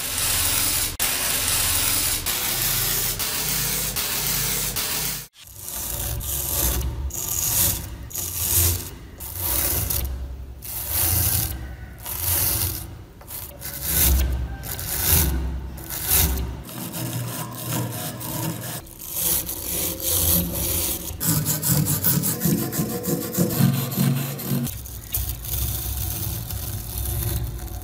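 A stiff brush sweeping loose rust powder for about five seconds, then a steel wire brush scrubbing thick rust off an antique padlock body in back-and-forth strokes, roughly one a second.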